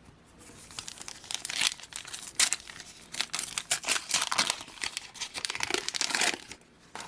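A Panini Adrenalyn XL card packet being torn open, its wrapper crinkling in a dense run of crackles that lasts about six seconds before stopping.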